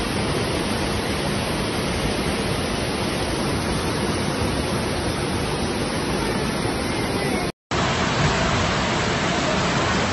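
Floodwater rushing in a steady, loud, even roar of a muddy torrent. It cuts out for an instant about seven and a half seconds in, then carries on as a similar rush of water.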